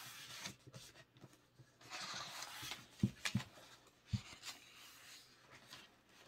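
Pages of a thick glossy photobook being turned by hand: paper rustling and sliding, then three short soft thumps about three to four seconds in.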